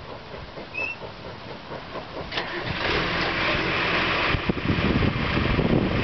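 John Deere 710D backhoe's diesel engine cranking on the starter with an even pulsing, then catching about two and a half seconds in and running louder.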